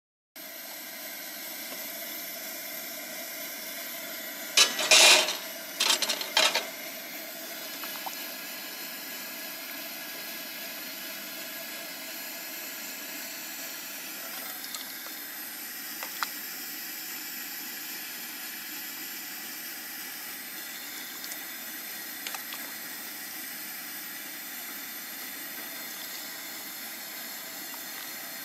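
Steady hiss from a camp stove burner heating a pot of soup. About five seconds in comes a brief burst of splashing and clatter as soup is ladled in the pot.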